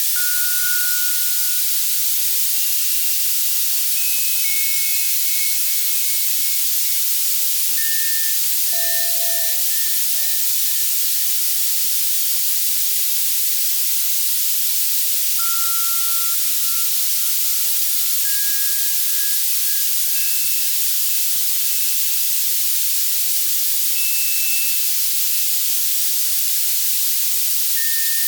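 Steady, bright white-noise hiss from an Access Virus C synthesizer, with sparse synthesized bell notes at scattered pitches every few seconds, each repeating a few times as it fades like an echo. The mix is made as a tinnitus masker.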